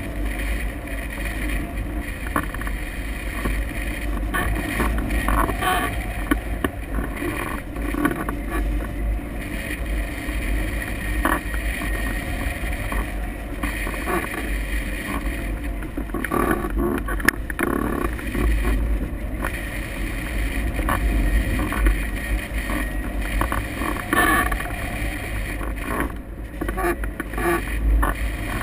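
Wind rushing over the microphone of a camera mounted on a hang glider in flight: a steady, heavy rumble of airflow with uneven gusts and a few brief knocks.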